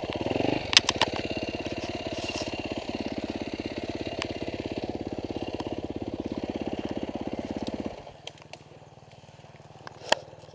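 Yamaha dirt bike engine running steadily at low revs with an even, fast beat, dropping much quieter about eight seconds in to a low hum. A few sharp knocks land over it.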